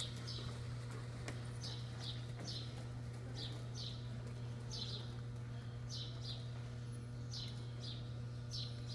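Small birds chirping: short high chirps, often in quick pairs, every second or so, over a steady low hum.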